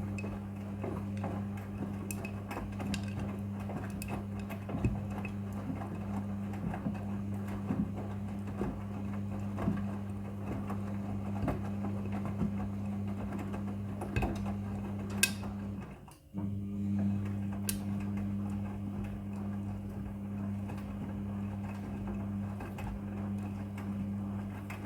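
Front-loading washing machine running a wash, with a steady low motor hum and scattered light clicks and knocks from the tumbling load. The sound drops out briefly about two-thirds of the way through, then the same hum resumes.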